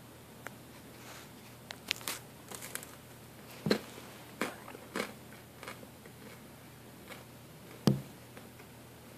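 A Nova Scotia duck tolling retriever moving over wood-chip mulch with a toy in its mouth: scattered crunches and clicks, with sharper knocks about four seconds in and near the end.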